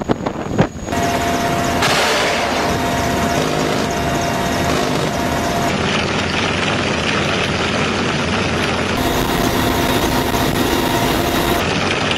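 Helicopter rotor beats for about a second, then steady in-flight engine and rotor noise of a Mi-28 attack helicopter, picked up close on the airframe at its nose cannon.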